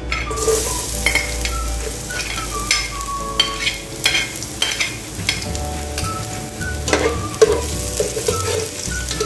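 Chopped garlic sizzling as it drops into hot cooking oil in a non-stick saucepan over medium heat; the sizzle starts just after the beginning. A metal spoon scrapes the garlic off a ceramic plate and stirs it in the pan, with frequent small clicks and scrapes.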